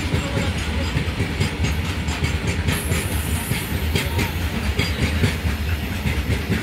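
Long freight train of covered goods wagons rolling past close by: a steady low rumble with the wheels clicking and clattering over the rail joints.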